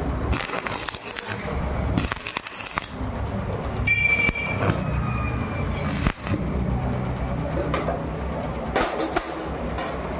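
Electric arc welding on a door: the arc crackles and sizzles in several short runs, over the steady hum of the welding machine.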